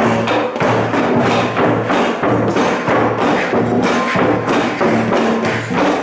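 Drum circle playing together: hand drums and a conga struck with a mallet, with wood-block clacks and a tambourine, keeping a steady pulse of about two and a half beats a second.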